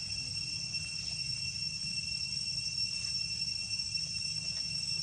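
Steady high-pitched insect drone, with an even low rumble underneath.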